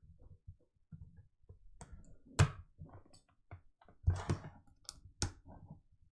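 Irregular sharp clicks and taps of a phone, its parts and small tools being handled on a repair bench while a test screen is tried on an iPhone 8. The loudest click comes about two and a half seconds in, with a quick cluster of taps around four seconds.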